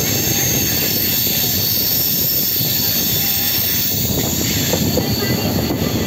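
Running noise of a passenger train heard from an open coach door while it rounds a curve: a steady dense rumble of wheels on rails mixed with rushing wind.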